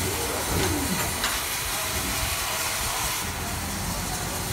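Steady hissing noise over a low rumble, with a few faint clicks about a second in.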